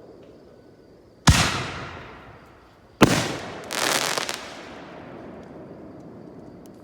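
Shots from a 10-shot firework mortar cake: two loud bangs about a second and a half apart, the second followed by a short burst of rapid crackling that dies away.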